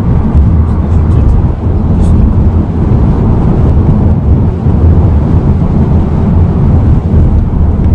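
Hyundai Sonata driving on a city street, heard inside the cabin: a steady low rumble of road and engine noise.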